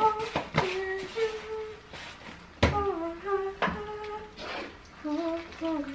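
A woman humming a tune in held, stepping notes, with a few sharp clinks of a cooking utensil against the pot.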